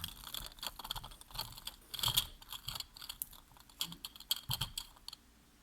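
Plastic fidget toys being handled, making quick irregular clicks and clatters that stop shortly before the end.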